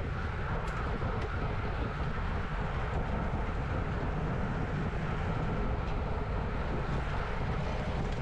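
Steady wind rush and low rumble from a road bike riding at about 40 km/h, the wind buffeting a bike-mounted camera's microphone over tyre and road noise, with a few faint clicks.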